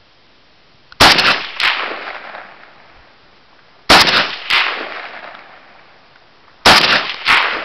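Romanian WASR-10 AK-47 rifle (7.62×39mm) being fired: six loud, sharp shots in three pairs about three seconds apart, the two shots of each pair about half a second apart, each report dying away in a long rolling tail.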